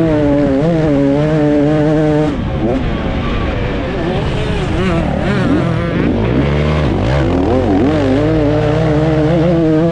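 2024 KTM 250 SX two-stroke single-cylinder engine revving hard under racing load. Its pitch climbs and holds, drops off sharply about two seconds in, wavers up and down for a few seconds, then builds back up and holds high near the end.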